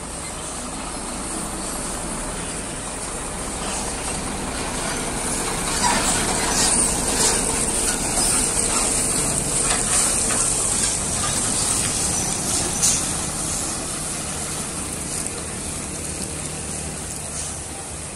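Diesel tractor-trailer hauling a tank container passing close by, followed by a light truck: engine and tyre noise swells to a peak in the middle and fades toward the end, with a few short sharp hisses at the loudest part.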